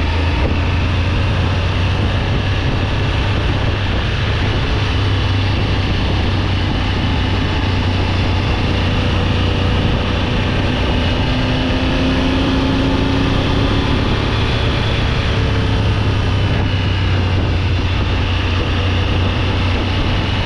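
Triumph Tiger 900 GT Pro motorcycle's three-cylinder engine running steadily while riding, under an even rushing noise, with small changes in pitch.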